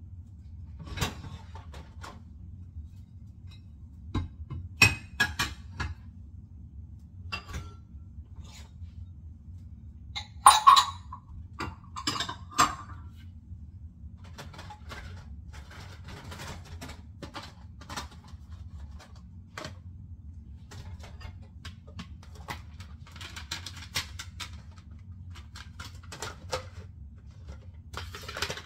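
Dishes and cutlery knocking and clinking as they are washed by hand, in scattered irregular clatters, with a louder run of ringing clinks about ten to thirteen seconds in. A steady low hum lies underneath.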